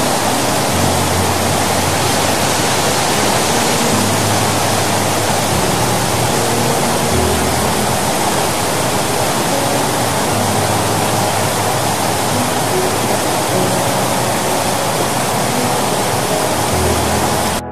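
Water discharging at full force through a large dam's open spillway gates: a loud, steady rush of falling and churning water. Faint background music with low bass notes sits underneath.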